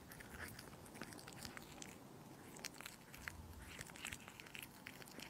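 A cat chewing and licking pieces of meat off a plate: quiet, quick irregular wet clicks of its teeth and tongue.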